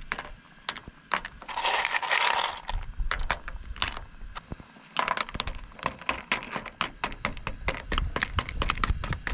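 Cockle shells clicking and clinking as they are picked out of a bowl and dropped into a pan of curry sauce: a run of sharp clicks, densest in the second half, with a brief rattle about two seconds in.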